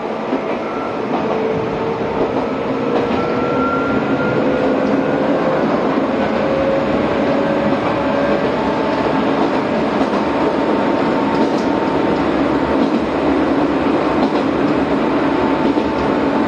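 Izuhakone Railway Sunzu Line electric train running along the line, heard from inside the rear cab: steady wheel and running noise, with a faint whine that rises slowly in pitch over the first several seconds.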